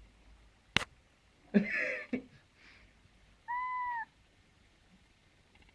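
Black house cat making odd vocal noises: a rough, raspy sound about one and a half seconds in, then a short, clear call held at one pitch near the middle. A sharp click sounds just before the first second.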